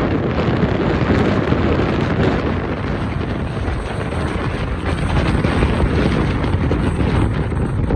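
Strong wind gusting over the microphone, a continuous low rumbling buffet that swells and eases slightly.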